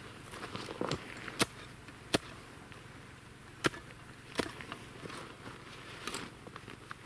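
A small spade chopping at dry reeds and brush stems: a handful of sharp strikes at uneven intervals, with crackling and rustling of dry stalks between them.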